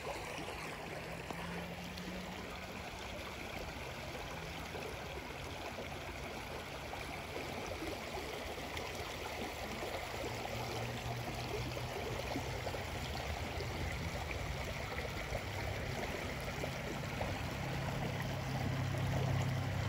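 Shallow creek water running over rocks: a steady wash that grows slightly louder toward the end.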